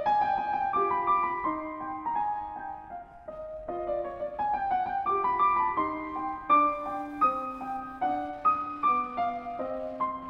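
Piano playing a passage of classical chamber music, a steady run of changing notes.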